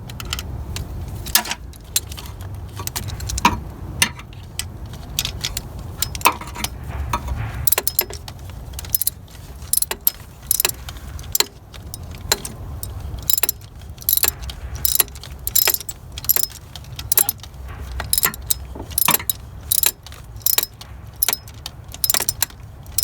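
Hand ratchet running in a starter motor's mounting bolt: repeated sharp clicks and metal clinks as the handle is swung back and forth, in bursts about a second apart in the second half, over a steady low rumble.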